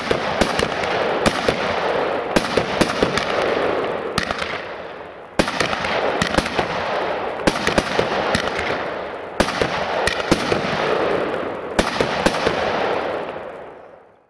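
Weco Quattro firework compact firing shot after shot: a dense steady hiss with many sharp cracks. It surges again about five and about nine seconds in, then dies away near the end.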